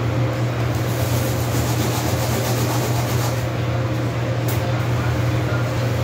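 Steady low mechanical hum over a constant background hiss.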